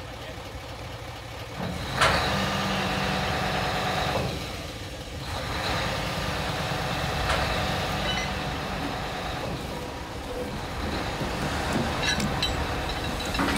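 A heavy diesel engine running steadily on a work site, its note stepping up about two seconds in, with a few sharp knocks.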